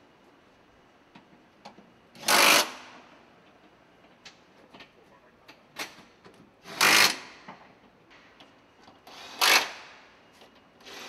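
Three short bursts of a handheld power fastening tool driving bolts, each about half a second long, with light clicks and knocks of assembly work in between.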